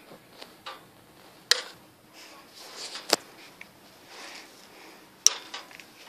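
Three sharp clicks about two seconds apart, with faint rustling between them.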